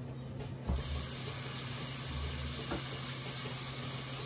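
Kitchen tap running, filling a measuring cup with water; a knock comes just before the water starts under a second in, then a steady hiss of running water.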